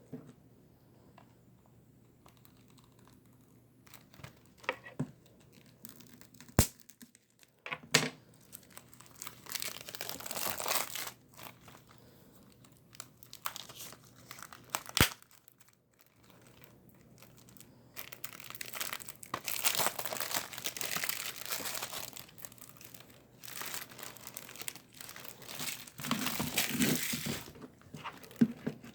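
Plastic shrink-wrap on a Blu-ray case being torn and crinkled off in long stretches, with a few sharp clicks between them.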